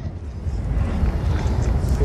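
Steady low outdoor rumble with faint voices, in a lull between firework bursts.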